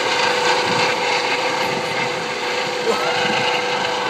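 Large radio-controlled model helicopter flying overhead, its drive running with a steady whine.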